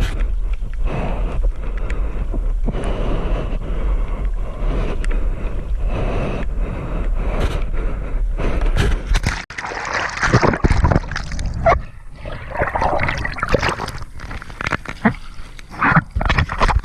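Wind buffeting the microphone as a low steady rumble. About halfway through it cuts out and gives way to uneven water splashing and sloshing close to the microphone, the sea around a pump-foil board and rider.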